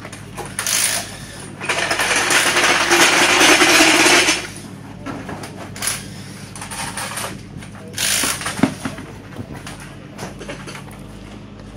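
Pneumatic impact wrench rattling on a rally car's wheel nuts in several bursts, the longest about two and a half seconds, with a sharp metallic knock about eight and a half seconds in. A steady low hum runs underneath.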